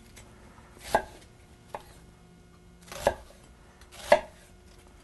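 Chef's knife cutting an onion on a wooden cutting board: three chops, each a short crunch through the onion ending in a sharp knock on the board, with a lighter tap between the first two.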